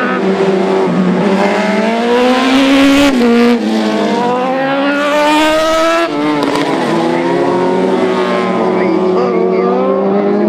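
Single-seater formula race car engines revving hard as the cars accelerate out of a corner. The engine note climbs steadily and drops back at gear changes about three and six seconds in, with more than one car heard at once.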